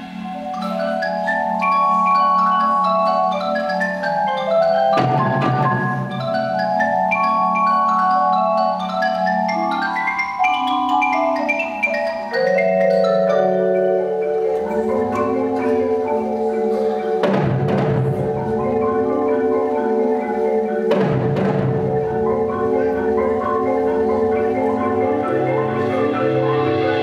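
Several Yamaha concert marimbas struck with mallets, playing a flowing line of quick and rolled notes over low bass notes. Three louder strokes ring out across the music, about five seconds in and twice in the second half.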